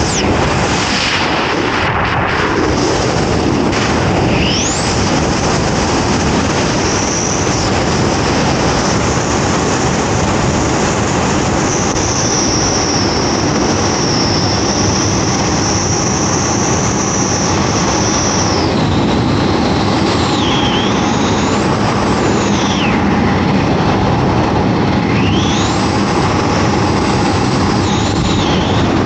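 Loud, steady rush of freefall wind buffeting a 360 action camera's microphone, with a high whistle over it that holds level for a while and then glides up and down in the second half.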